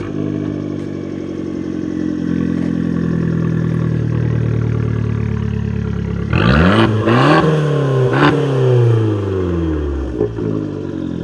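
2013 Fiat 500 Abarth's 1.4-litre turbocharged four-cylinder engine idling just after a cold start. It is revved twice, at about six and eight seconds in, each time rising and then falling back to idle.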